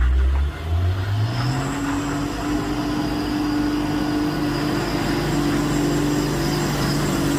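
Hino truck's diesel engine pulling, its pitch rising about a second in and then holding steady, with a thin high whine above it.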